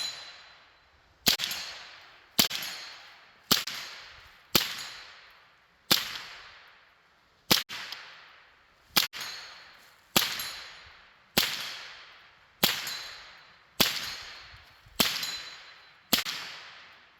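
AR-15 rifle fired in a string of thirteen single shots, about one a second with a couple of slightly longer gaps in the middle, each crack followed by an echo that dies away before the next shot.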